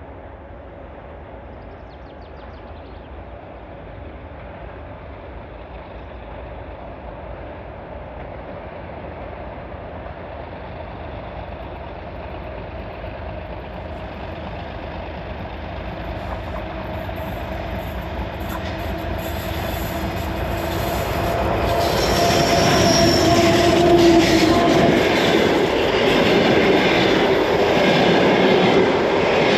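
A double-section 2M62U diesel locomotive, with two-stroke V12 diesel engines, hauling a passenger train. It runs with a steady engine drone that grows steadily louder as it comes closer, then is loudest as it passes close by, about two-thirds of the way through. Near the end the passenger coaches roll past, with the rumble and rattle of steel wheels on the rails.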